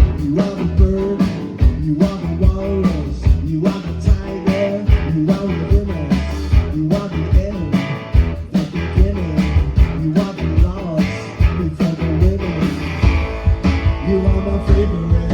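Rock band playing live: guitars over bass and drums with a steady beat, the instrumental intro of the song before the vocals come in.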